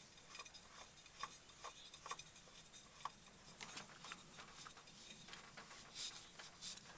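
Faint, irregular clicks and light knocks of hands turning a new spin-on oil filter onto the engine block, hand-tightening it.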